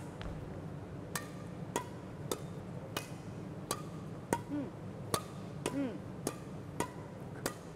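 Badminton rally: rackets striking a shuttlecock back and forth, a sharp pop about every two-thirds of a second, each with a short echo of a large hall.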